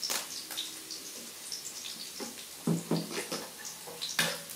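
Food sizzling and crackling in a hot metal wok on a portable gas stove, with a few sharp clinks of a metal spatula against the pan.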